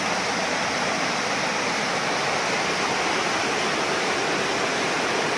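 Mountain river whitewater rushing steadily, a strong, even roar of water running at high flow where the channel narrows.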